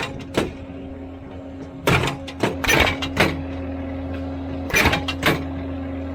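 Skid steer post driver pounding a wooden fence post, about eight sharp strikes unevenly spaced and some in quick pairs, over the steady running of the machine's engine. The post is slow to drive, which is put down to dry, hard ground.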